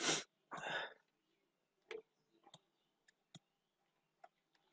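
Two short breath noises in the first second, then sparse, sharp computer mouse clicks, about five of them spread over the rest.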